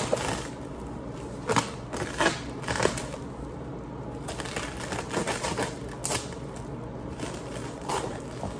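Plastic stretch wrap on a cardboard box crinkling and tearing as it is cut and pulled at, in a string of short, irregular crackles.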